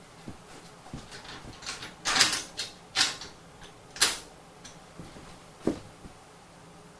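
A handful of irregular sharp knocks and clanks, as of objects being handled and set down, the loudest cluster about two to four seconds in.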